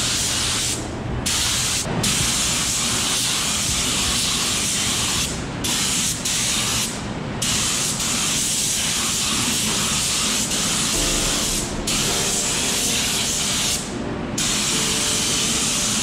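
Gravity-feed spray gun hissing as it sprays liquid wrap onto a brake caliper and wheel. The hiss is steady in passes, with several brief breaks where the trigger is let off.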